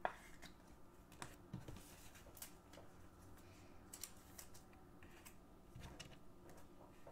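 Faint, scattered light clicks and rustles of trading cards and a clear plastic card sleeve being handled on a tabletop, with a sharper tick at the very start.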